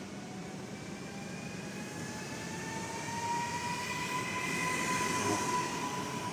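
Electric passenger train accelerating away from the platform: its traction motors whine, rising slowly in pitch, over a rumble of wheels on the rails. The whine is loudest a little past the middle.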